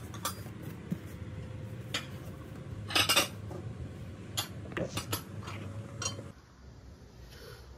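Unboxed homeware being handled and set down: a string of knocks and clinks, the loudest clatter about three seconds in.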